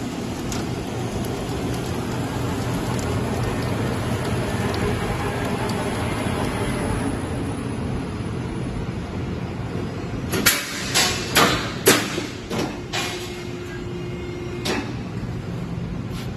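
C/Z purlin roll forming machine running, a steady mechanical rumble from its chain drives and forming rollers. From about ten seconds in, a run of sharp metallic knocks and clanks sounds over it for a few seconds.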